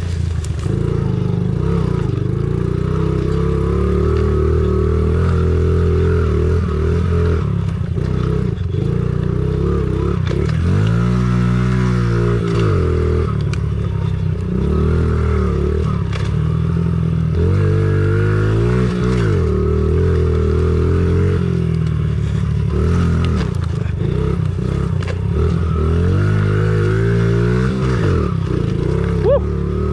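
Honda CRF50 pit bike's small four-stroke single-cylinder engine running while being ridden. The revs fall and climb again three times: about a third of the way in, just past halfway, and near the end.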